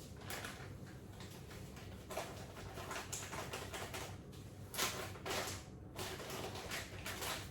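Soft brown sugar being tipped from its packet into a bowl: rustling and soft scraping in a run of short bursts.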